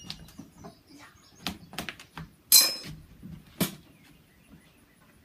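A series of sharp clicks and knocks from gear being handled at a shooting bench. The loudest is a ringing metallic clink about two and a half seconds in.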